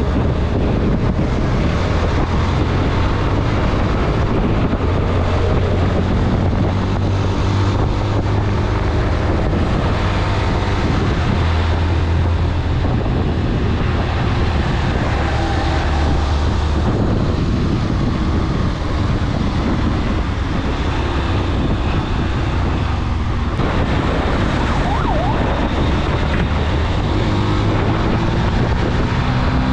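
Motorcycle engine running at riding speed, its note rising and falling with the throttle, under steady wind rush on the microphone.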